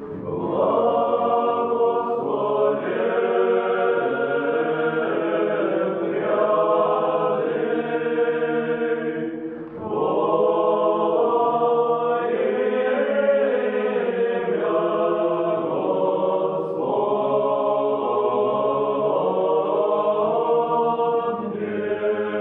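A choir singing Orthodox church chant in sustained, slowly moving chords, with a brief break between phrases about ten seconds in.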